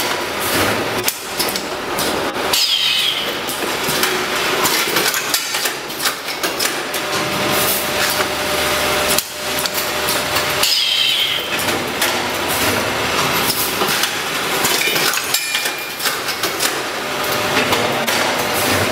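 Automatic rice-grain vacuum packing machine running: a dense, continuous metallic clatter of clicks and knocks.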